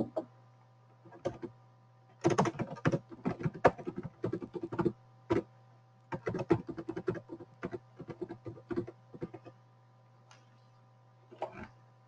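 Typing on a computer keyboard: two runs of quick keystrokes, with a few stray clicks before and near the end, over a faint steady hum.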